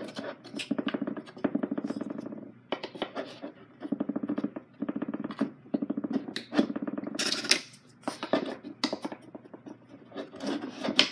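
Coin bank kit pieces being handled and slid into place: sharp clicks and knocks over a rapid, even rasping that comes in stretches of a second or two with short breaks.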